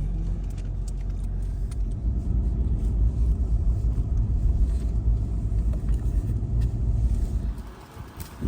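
A motor vehicle running with a steady low rumble, which drops away about a second before the end.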